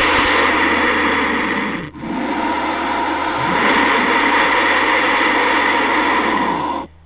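Designed Velociraptor mongoliensis call built from pitched-down animal recordings (vulture vocals layered with bird and reptile sounds): one long, loud, rough and noisy call with a brief break about two seconds in.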